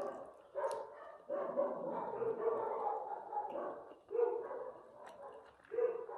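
Dogs barking in repeated calls, with one longer, drawn-out call of about two seconds in the middle.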